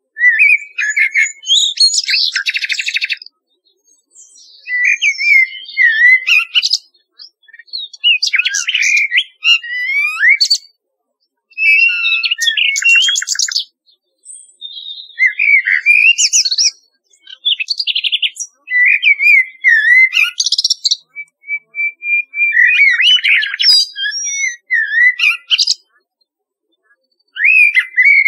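Nightingale and blackbird song: phrases of a few seconds made of warbled whistles and fast rattling trills, separated by short pauses, with a run of repeated high notes a little past the middle.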